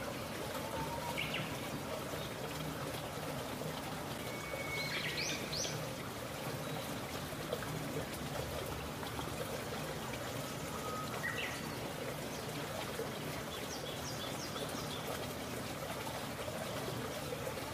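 Steady outdoor background hiss, with a few short bird chirps scattered through it.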